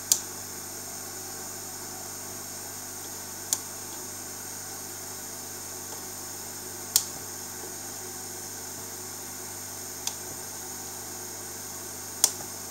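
Cutters snipping the excess leads of newly soldered capacitors on a switching power-supply circuit board: five sharp clicks, a few seconds apart, over a steady faint hiss.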